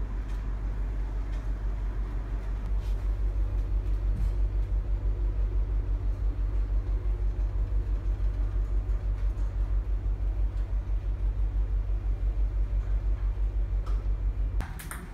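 Low, steady rumble with a fast, regular throb: a container ship's engine and hull vibration heard on the bridge. It cuts off abruptly near the end, giving way to a few sharp clicks.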